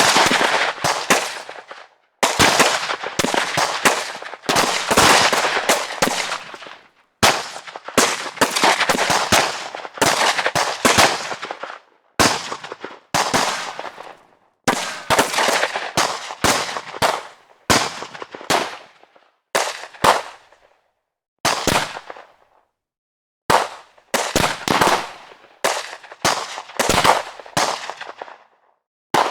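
Gunfire sound effects: a string of separate clips, each a burst of several rapid shots with echoing tails, broken by short silent gaps, the longest about two seconds near 21 seconds in.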